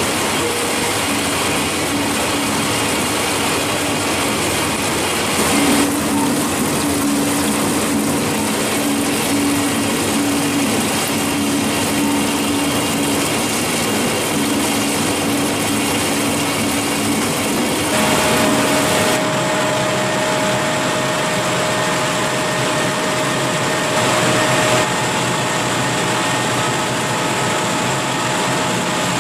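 Food-processing plant machinery running steadily, a mechanical hum with a steady whine over it. The pitch and character change abruptly a few times.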